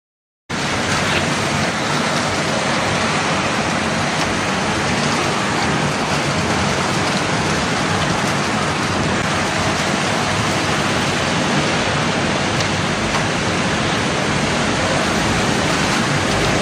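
Steady, loud rushing hiss of wind-driven rain in a winter storm squall, starting abruptly after a half-second of dead silence.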